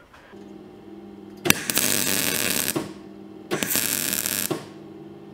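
MIG welder laying two short welding bursts, each about a second long, with a steady hum between them. The hiss and crackle of the arc stops and starts because the thin seam of the exhaust tube is being welded in little pulses so it won't blow a hole in it.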